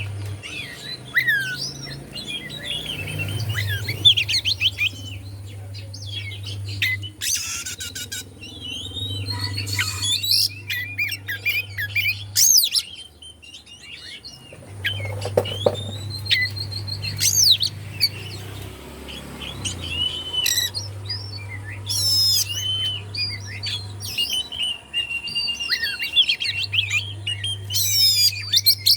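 Oriental magpie-robin (kacer) singing: a run of varied whistled phrases, trills and sliding notes mixed with several harsh rasping bursts. A low steady hum comes and goes underneath.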